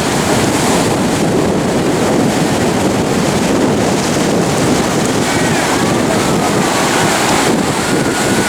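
Ocean surf breaking and washing, mixed with strong wind buffeting the microphone in a steady loud rush.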